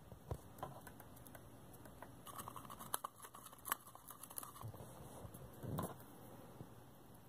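Cockatiel beak picking and chewing at a cardboard tube toy hung with plastic rings: scattered light clicks and taps, with a few sharper ones.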